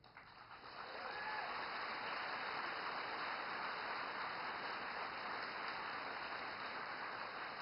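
Audience applauding: a dense, even clapping that swells in over the first second, holds steady and eases slightly near the end.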